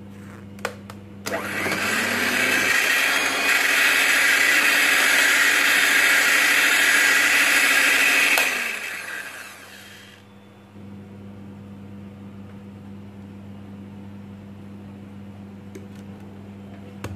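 Morphy Richards 300 electric hand mixer, after two clicks, running with its beaters whisking runny whipping cream in a glass bowl. The motor's pitch rises as it gets up to speed and then holds steady for about seven seconds before it winds down and stops.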